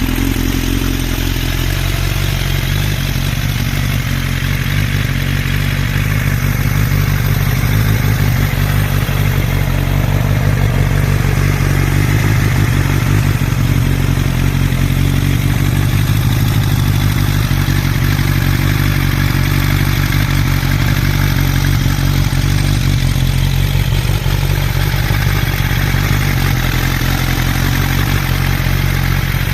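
Suzuki Katana motorcycle's swapped-in GSX-R1100 inline-four engine idling steadily.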